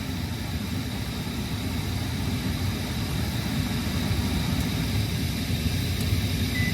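Payne gas furnace's motors running with a steady low hum and a faint high whine.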